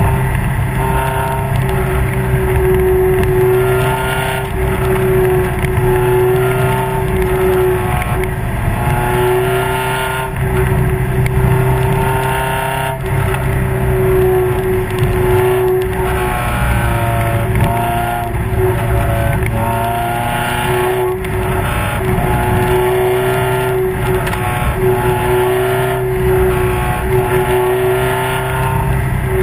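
Spec Miata race car's four-cylinder engine and exhaust running hard at racing speed, heard from the car's rear, with revs climbing and dropping again and again through gear changes and corners.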